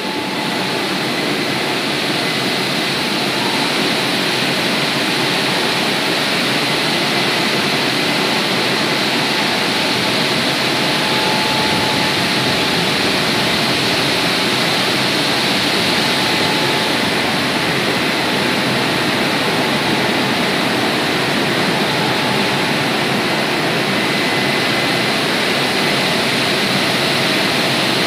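WashTec automatic rollover car wash machine running over a car: a loud, steady rush with a faint thin whine in it, holding unchanged throughout.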